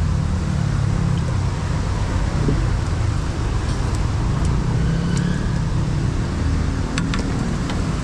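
Steady low rumble of road traffic, with a couple of sharp clicks near the end.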